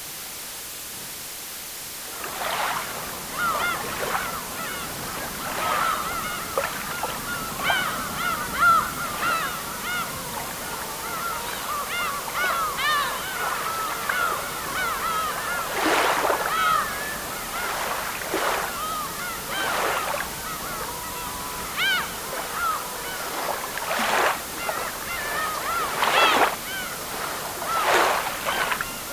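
A large flock of waterbirds calling and honking over one another, over a steady wash of water noise. The calls start about two seconds in, after a plain steady hiss.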